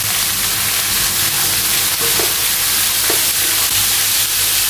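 Shredded papaya sizzling steadily in hot oil in a stainless steel wok while a spatula stirs it through.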